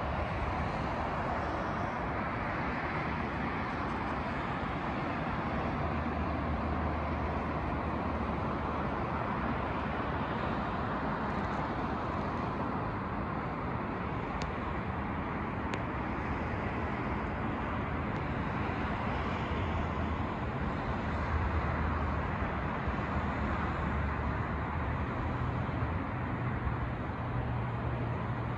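Steady outdoor rumble of distant engines: a low, shifting hum under a wide hiss, with the low hum a little stronger near the end.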